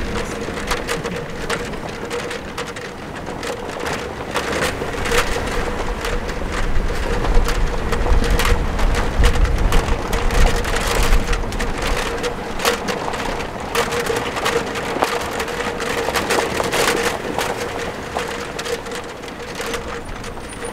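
Vehicle driving over a rough, rutted dirt road: tyres crunching on dirt and gravel, the body knocking and rattling over the bumps, with a steady hum beneath. The low rumble grows heavier around the middle.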